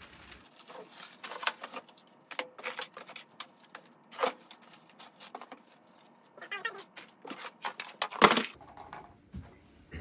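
Clear plastic bags crinkling and rustling as packaged smoke detector parts are handled, with scattered clicks of the parts knocking together. One loud knock comes about eight seconds in.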